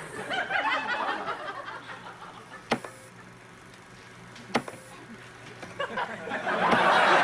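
Studio audience laughing, swelling into a loud burst of laughter near the end. In a lull, two sharp clicks with brief high beeps from the control-panel buttons are heard.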